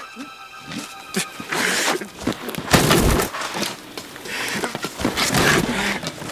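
Horror-film soundtrack: a few loud, rough noisy surges, the loudest about three seconds in with a deep thud.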